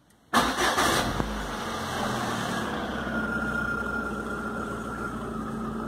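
Citroën Xsara Picasso engine started from inside the cabin: the starter cranks about a third of a second in, the engine catches within about a second and settles into a steady idle. A thin steady whine sits over the idle from about three seconds in.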